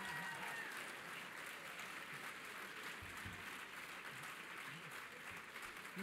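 Audience applause, a steady patter of many hands clapping that eases slightly toward the end.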